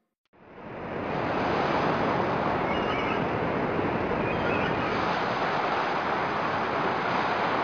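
Steady rush of ocean surf, fading in over about a second.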